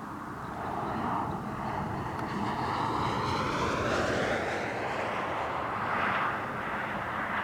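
A vehicle passing by with a sweeping rushing sound that grows to its loudest about four seconds in, over a heavy low rumble of strong wind on the microphone.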